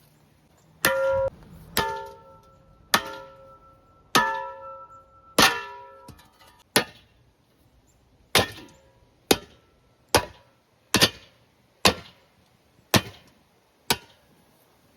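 A series of blows, about thirteen at roughly one a second, struck against a ceiling fan's metal parts. The first five clang and ring on briefly, and the later ones are shorter, duller knocks.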